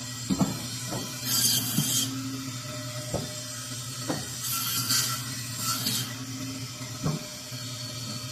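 Meat band saw running with a steady motor hum, its blade hissing through blocks of meat in several short cuts. Sharp knocks come now and then as pieces are set down on the steel table.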